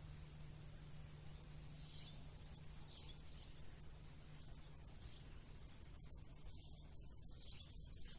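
Faint rural ambience: a steady high-pitched insect drone with occasional faint bird chirps.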